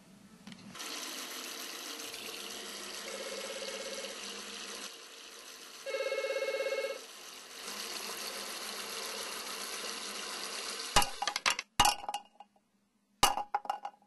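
Telephone ringing: a faint ring about three seconds in, then a louder ring around six seconds, over a steady hiss. Near the end, several sharp clinks as a toothbrush is dropped into a mug.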